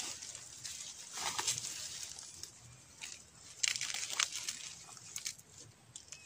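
Dry bamboo leaf litter crunching and crackling underfoot as a person steps through it: a few separate crunches, the loudest about four seconds in.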